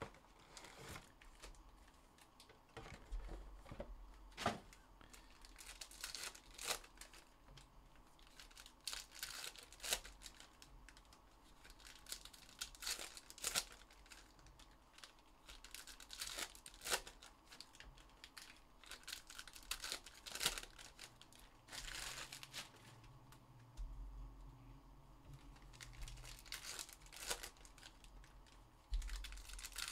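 Trading-card pack wrappers being torn open and crinkled by hand: irregular crackling with several sharper rips scattered throughout.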